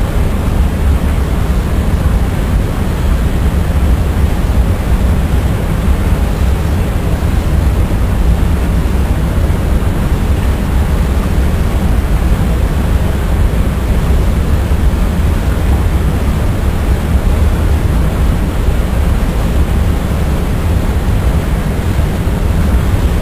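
A steady, loud rumbling noise, heaviest in the low end with a hiss above it, unchanging throughout.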